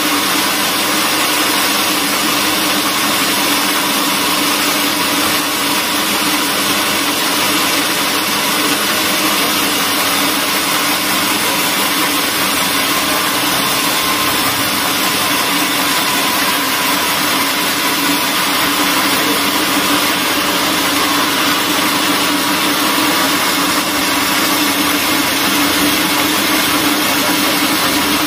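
Large band sawmill running steadily, its blade sawing a long board from a log: an even mechanical hum with a constant hiss of cutting, not changing in pitch or level.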